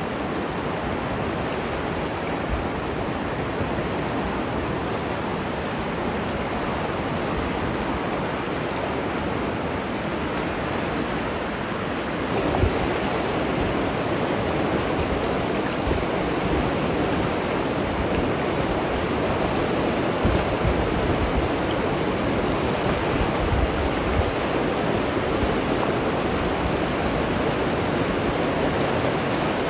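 River rapids: white water rushing steadily over and around rock ledges, a little louder from about twelve seconds in.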